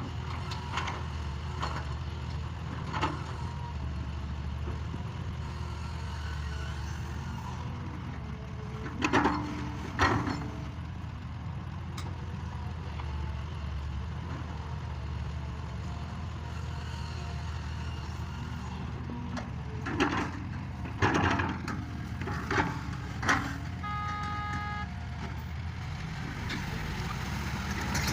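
Excavator's diesel engine running steadily, with several loud clanks and knocks from the machine's bucket and arm at work, and a short electronic beep about three-quarters of the way through.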